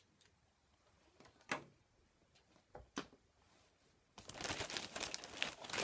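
A few soft scattered taps, then from about four seconds in a plastic bag rustling and crinkling steadily as it is handled to pull a packaged toy out.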